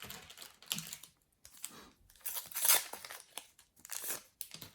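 A trading-card foil packet being torn open and crinkled by hand, in a series of irregular tearing and rustling bursts.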